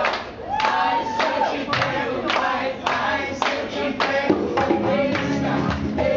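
Reggae busking: many voices singing along to an acoustic guitar, with hands clapping in time about twice a second. The music fills out with low notes about four seconds in.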